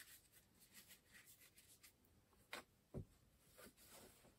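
Near silence with faint handling: a stack of cardboard game tiles rubbing as it is slipped into a cloth drawstring bag, with two soft clicks about two and a half and three seconds in.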